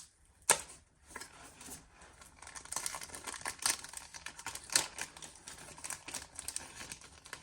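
Packaging being opened by hand, crinkling and rustling, with a sharp click about half a second in and a busy run of small clicks and rustles from about two seconds on.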